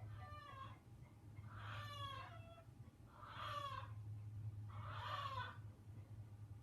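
Recorded chicken clucks and squawks from a sound-effects track, played through an Alexa smart speaker: four separate calls about a second and a half apart, over a low steady hum.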